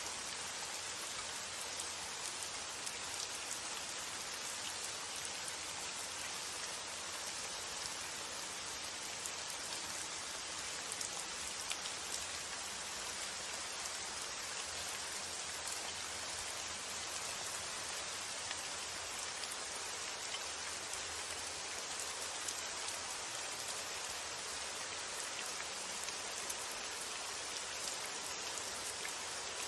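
Steady rainfall, an even hiss of rain with scattered small drop ticks, holding at the same level throughout.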